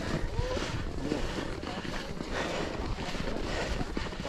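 Footsteps in packed snow, one to two a second, with wind rumbling on the microphone.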